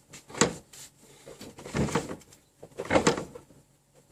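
Motorcycle front wheel being spun by hand in repeated pushes, a short rush of noise with each push about every second and a quarter, while the speed sensor is tested.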